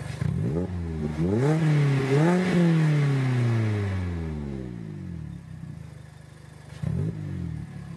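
ND Mazda MX-5 Miata four-cylinder engine, heard through a Magnaflow Street cat-back exhaust, revved while stationary. It idles, gives a quick blip, then a longer rev that climbs for about a second and falls slowly back to idle, with another short blip near the end.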